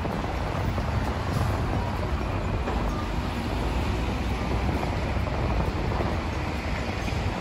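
Wind buffeting the microphone over a steady rumble of street traffic.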